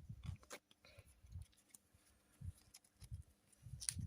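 Faint handling noise of a trading card being slid into a plastic card sleeve: scattered light clicks and rustles with soft low bumps, and a sharper click near the end.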